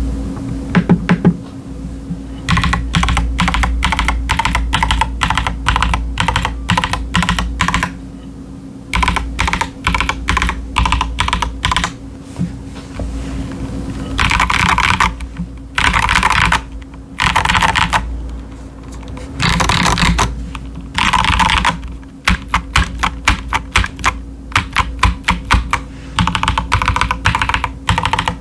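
Mechanical keyboard typing on an Akko 5075s with Gateron Azure Dragon V2 linear switches and doubleshot PBT ASA-profile keycaps. The keys clack in quick runs broken by short pauses, with several dense flurries of keystrokes midway.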